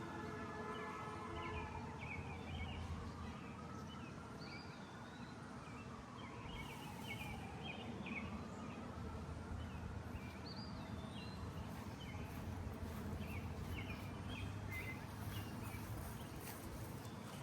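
Birds chirping over a steady low background rumble, with a faint tone that slowly rises and falls twice.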